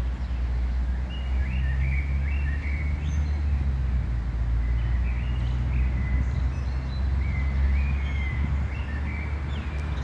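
Small songbirds chirping repeatedly in the tree canopy over a steady low rumble.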